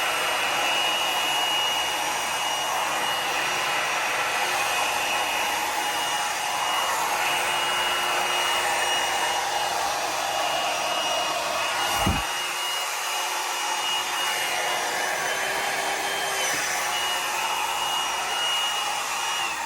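Handheld electric blower running steadily with a thin whine, blowing wet acrylic pour paint across a canvas. A single sharp knock comes about twelve seconds in, and the whine shifts in pitch near the end as the sound drops away.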